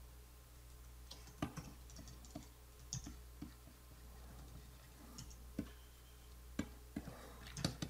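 Faint, irregular clicks of computer keyboard keys being pressed, a dozen or so scattered and bunching up near the end, over a low steady electrical hum.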